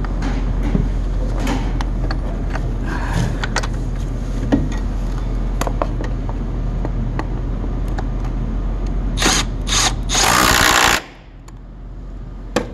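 Scattered clicks and knocks of a new car battery and its fittings being handled and seated in an engine bay, over a steady low mechanical hum. Near the end comes a loud hiss lasting about two seconds, after which the hum drops away.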